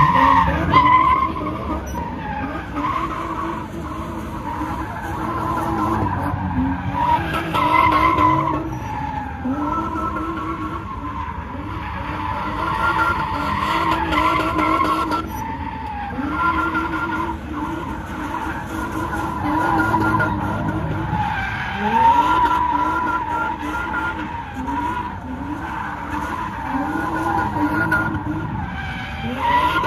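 Car tyres screeching almost without a break as cars spin in sideshow donuts, with engines revving underneath. The squeal wavers in pitch and swells and drops back every few seconds, loudest about 1, 8 and 22 seconds in.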